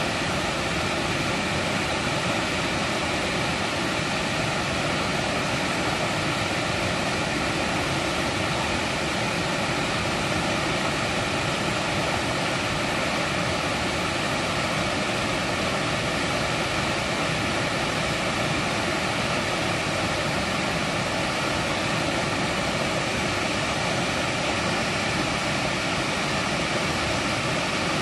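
Mountain valley stream rushing over rocks: a steady, even rush of water with no breaks.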